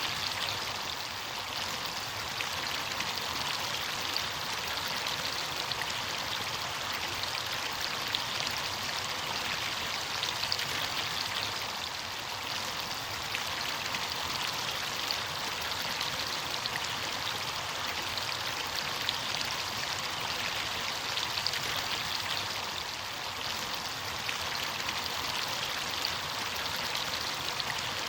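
Running water of a stream or small cascade: a steady rush of water with many fine splashes, even throughout.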